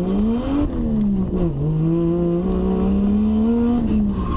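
Drift car's engine accelerating hard, heard from inside the cabin: the pitch climbs steeply, drops sharply under half a second in, dips again near a second and a half, then holds at high revs, slowly rising, before falling away near the end.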